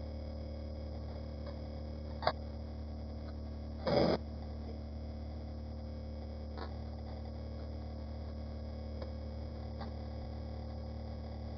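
A steady low hum, with a sharp click a little over two seconds in and a short, louder clatter about four seconds in.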